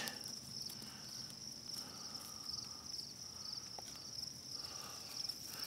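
Insects chirping steadily in a high, finely pulsing note, with faint scattered crackles from burning fatwood and dry twigs.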